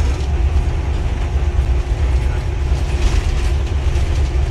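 Diesel-electric locomotive under way, heard from inside its cab: a steady, deep engine rumble with the cab rattling. The rattling is briefly stronger about three seconds in.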